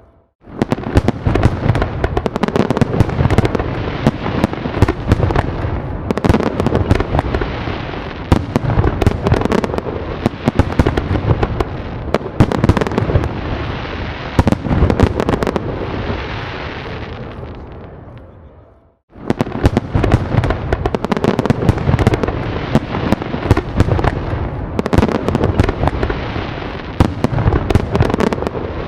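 Fireworks display: a dense barrage of overlapping bangs and crackles. The barrage fades away about two-thirds of the way in, drops out for a moment, then comes back abruptly.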